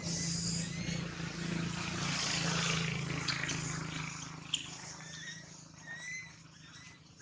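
Outdoor ambience: a low steady hum with a haze of noise swells over the first few seconds and then fades. A few short, high, rising chirps and a couple of light clicks sound over it.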